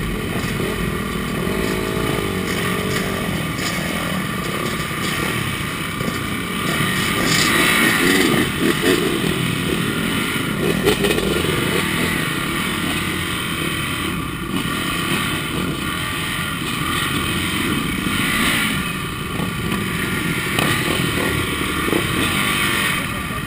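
Several motocross motorcycle engines running close by, the nearest one idling and rising and falling a few times as it is blipped, with other bikes' engines running around it.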